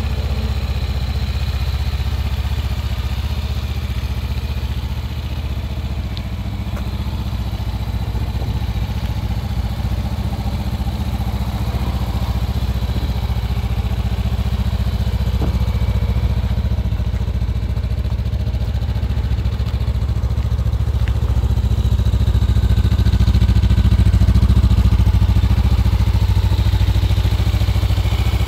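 Honda CB500F's 471 cc parallel-twin engine idling steadily.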